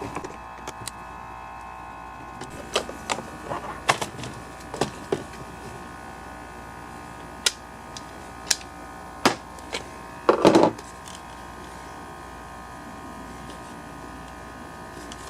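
Scattered clicks and taps of hand tools and small chainsaw parts being handled on a workbench over a steady background hum, with one louder short rattle about ten seconds in.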